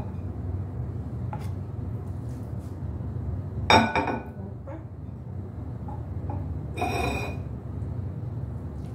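Scrambled eggs being served from a nonstick frying pan onto bread on a ceramic plate: the pan and silicone spatula clink and scrape against the plate and pan twice, about four seconds in and again near seven seconds, over a steady low hum.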